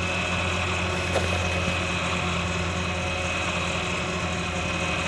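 Electric pump motor of a Wilbers electronic rear shock's hydraulic preload adjuster running steadily with a thin, high, even whine over a low hum, pumping the preload back up to the firm setting.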